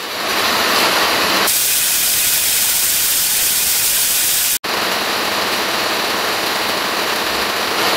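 Heavy rain pouring down, a steady loud hiss. It turns brighter and harsher from about one and a half seconds in, then drops out for an instant just past the middle.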